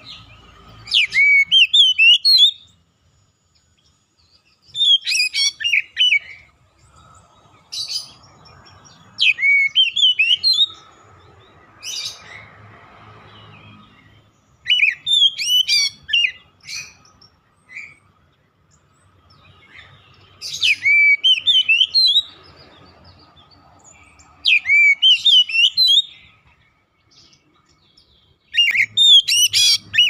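Oriental magpie-robin (kacer) singing loud phrases of quick rising and falling whistled notes, one phrase about every four seconds. A few short single notes fall in the gaps.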